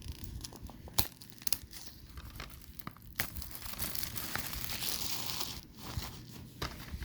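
Plastic shrink-wrap being torn and crinkled off a DVD case, with several sharp clicks and snaps and a longer stretch of rustling in the middle.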